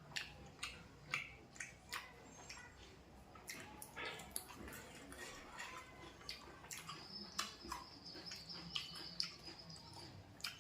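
Someone eating with their hands: irregular wet clicks and smacks of chewing and lip smacking, sometimes several a second.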